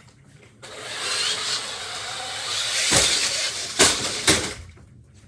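Toy RC car running loudly from about half a second in, then three sharp knocks near the end as it launches off a ramp, lands and tumbles in a backflip.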